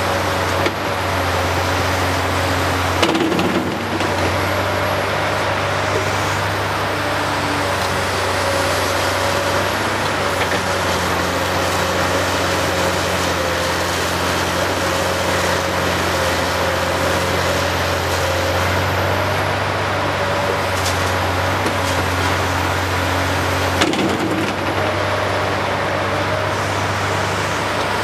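Caterpillar 385C large hydraulic excavator running steadily under load, a constant low diesel drone with a wavering whine above it, as it swings, dumps and digs. A short rumble of rock comes a few seconds in and again near the end.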